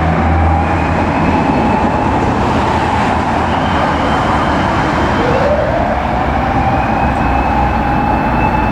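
Fire engine's mechanical motor siren wailing: it holds its pitch, dies away, then winds up again in a slow rise about five seconds in, over the noise of traffic and the truck's engine.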